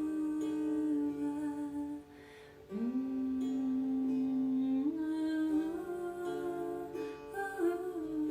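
Meditative humming: a voice holding long, sustained notes and sliding from one pitch to the next, with a short break for breath about two seconds in, over soft plucked-string music.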